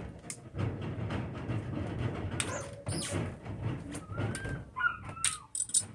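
Handling noise from a new utility knife being worked in the hands: rustling and several sharp clicks, with a couple of short squeaky tones around four to five seconds in.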